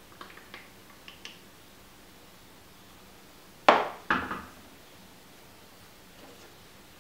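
A few faint clicks and taps, then two sharp knocks about half a second apart as a plastic oil syringe is set down on the workbench, the first knock the louder.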